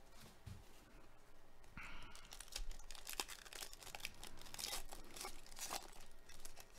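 Foil wrapper of a Donruss Optic baseball card pack being torn open and crinkled by hand. It starts quiet, then breaks into a run of sharp crackles from about two seconds in.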